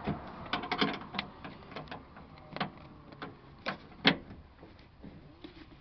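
Irregular small metallic clicks and knocks of a ring spanner working the 10 mm bolts that hold a car's exterior door handle, with one sharper knock about four seconds in.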